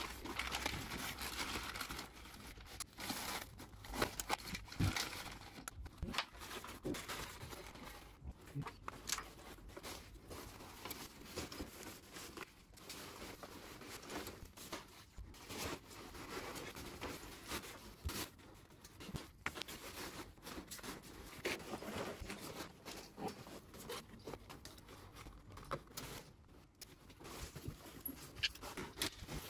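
Irregular rustling, crinkling and scuffing of nylon stuff sacks and gear being handled and pushed into a hiking backpack, with frequent small knocks.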